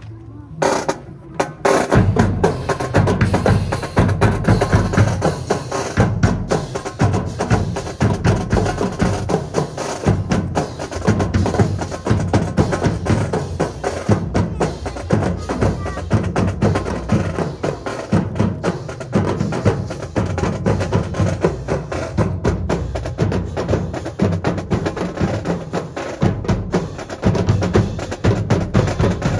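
Military drum corps playing a steady marching cadence on drums, with sharp wooden clicks and bass drum beats; it comes in loud about two seconds in.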